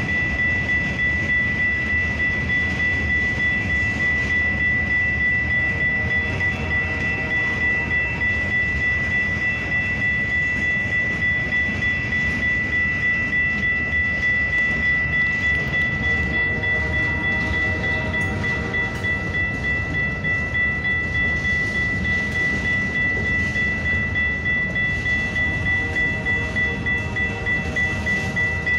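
Freight cars of a Canadian Pacific train rolling through a level crossing: a steady rumble and clatter of wheels on the rails, with the crossing's warning bell ringing steadily over it.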